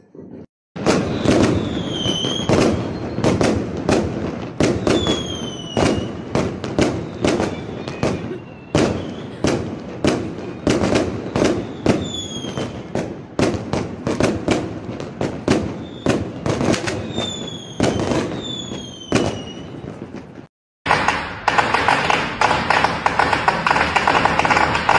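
Fireworks going off: a rapid string of sharp bangs and crackling pops, several a second, with short falling whistles scattered through. The barrage stops abruptly near the end and gives way to a steady, noisy hiss.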